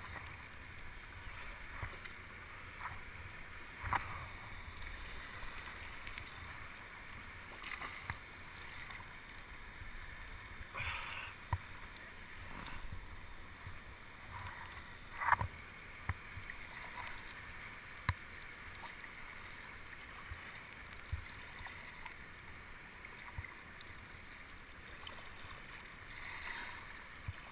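Water sloshing and lapping around kayaks as a swimmer works to climb back into one. A handful of short, sharp knocks of paddle or body on the hull are scattered through, the loudest about halfway through.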